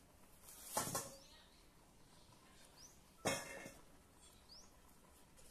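Banana leaf rustling and crinkling twice as hands fold it around a mound of grated cassava filling: a short swell about a second in, then a sharper crinkle past the three-second mark. A few faint, short, rising high chirps sound in the background.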